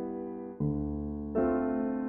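Slow, calm piano music: sustained chords fade away, and a new chord is struck about half a second in and another just under a second and a half in.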